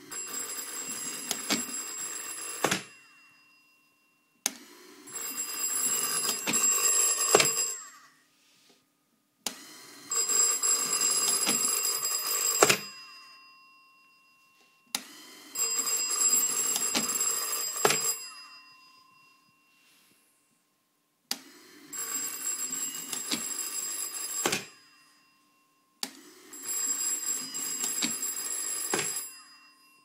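Bell of a black bakelite rotary telephone ringing in six rattling bursts of about three seconds each, with about two seconds of silence between them; each ring starts and stops with a sharp click.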